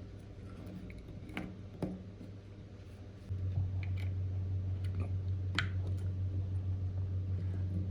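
A few faint, scattered clicks and taps of small tools being handled during small electronics repair work. About three seconds in, a steady low hum starts suddenly and runs on, louder than the clicks.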